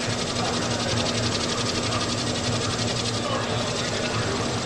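Lockheed Martin Samarai single-wing micro air vehicle in flight, its small propeller motor making a rapid, even pulsing buzz.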